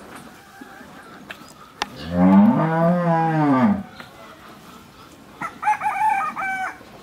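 A cow moos once, a long call that rises and falls, about two seconds in. Near the end a rooster crows, a shorter and higher call in stepped notes.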